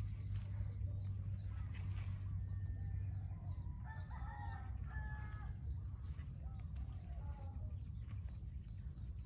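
A rooster crowing once, about four seconds in, faint over a steady low rumble.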